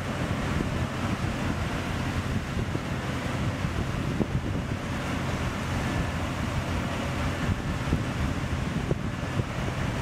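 Ultra Heavy Lift Amphibious Connector (UHAC) running on its tracks: a steady low rumble, mixed with wind buffeting the microphone.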